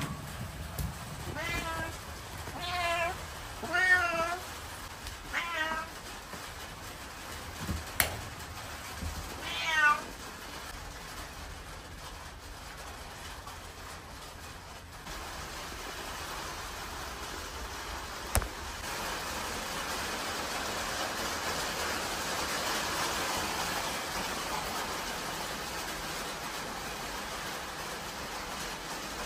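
Domestic cat meowing: five short meows in the first ten seconds, the loudest about four and ten seconds in. After that, a steady background hiss.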